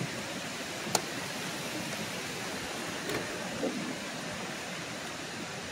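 Steady rushing wind noise outdoors on open water, with a single sharp click about a second in and a couple of soft knocks a little later.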